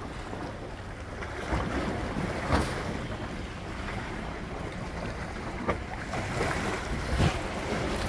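Ocean waves washing against rocks at the water's edge, a steady rush, with wind buffeting the microphone and a few short thumps.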